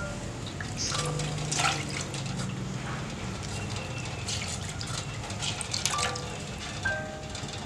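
Water splashing and dripping into an aluminium pot as a wet cloth is dipped and wrung out by hand, a few separate splashes over several seconds.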